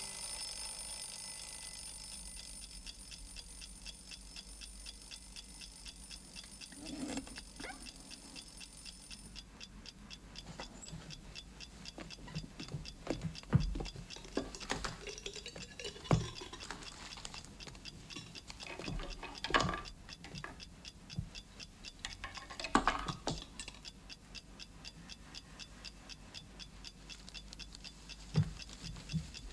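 Clock ticking steadily, with a few scattered knocks and rustles of movement.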